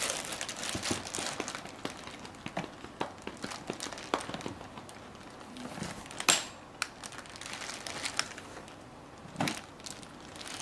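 Packaging crinkling and rustling as a costume is unpacked from its box: irregular small clicks and rustles, with a couple of sharper snaps.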